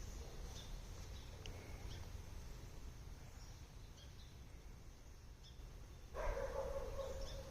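Quiet outdoor background with scattered faint high peeps, then about six seconds in a louder, raspy low call from a duck that runs on to the end.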